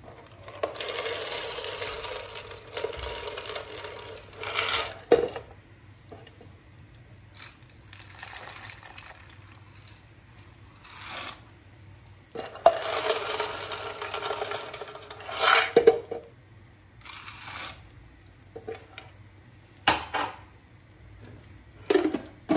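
Shelled peanuts poured and rattling against a glass and the steel pot, in two long pours of about four seconds each, with scattered clicks and knocks between.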